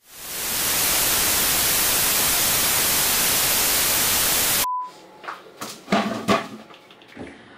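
Loud TV-style static hiss, fading in at the start and running steadily for about four and a half seconds before cutting off suddenly with a short beep. A few faint knocks follow near the end.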